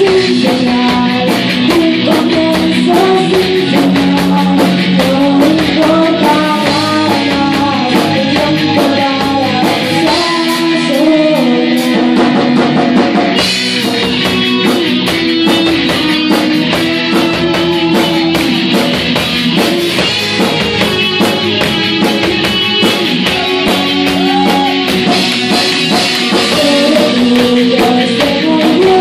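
Amateur rock band playing an original song live: electric guitars and a drum kit, with a voice singing over them.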